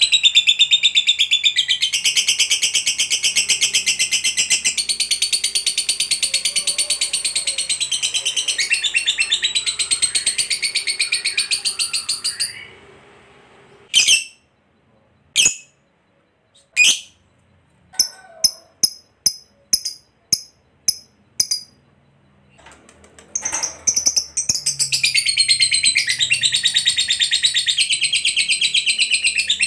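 Lovebird singing its long 'ngekek' chatter: a rapid, unbroken high-pitched chattering trill for about twelve seconds, then a pause broken by a few single sharp chirps and a quick run of short chirps, before the rapid chattering starts again for the last six seconds.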